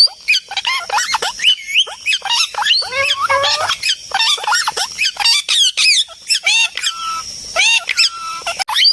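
Parrots calling in a rapid, unbroken stream of squawks and chirps that glide up and down in pitch, the calls often overlapping.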